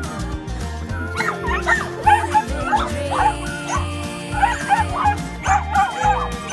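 Small dogs yipping and whining in quick, high calls, starting about a second in, over background music with a steady beat.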